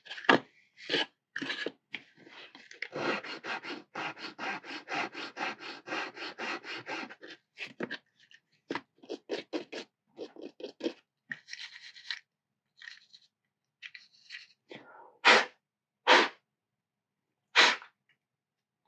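Small file scraping the plastic bogie mount of an HO scale hopper wagon kit in quick repeated strokes, densest early on, then three short loud sounds near the end.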